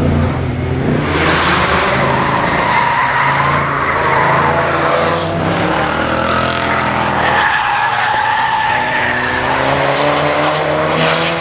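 A car driven hard, its engine revving up and down with tyres squealing as it slides through corners. The engine note dips about five seconds in, then climbs steadily near the end.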